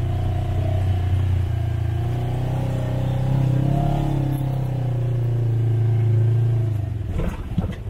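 A small off-highway vehicle's engine runs steadily while it is driven along a dirt trail, its pitch rising and falling a little with the throttle. About seven seconds in, the engine note gives way to a short run of knocks and rattles.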